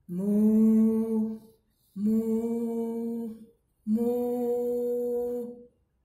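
A woman imitating a cow: three long "moo" calls on a steady pitch, each about a second and a half long, with short breaks between them.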